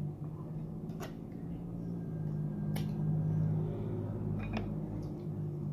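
Eating sounds: a few sharp wet clicks of chewing and lip-smacking, spaced about a second or two apart, over a low steady hum.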